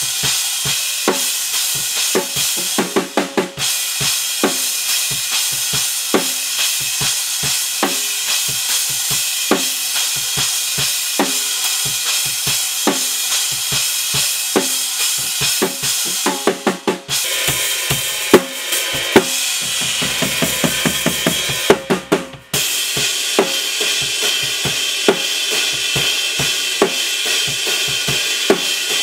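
Sonor drum kit played in a steady groove: kick and snare hits under a constant ride and crash cymbal wash. Fills with short stops come about 3, 17 and 22 seconds in, where the whole kit briefly cuts off.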